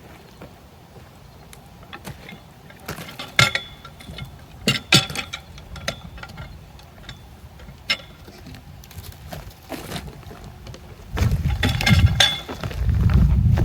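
A series of sharp metal clanks and knocks, some ringing briefly, from steel being handled and struck while a log is worked toward a portable sawmill. A heavy low rumble starts near the end.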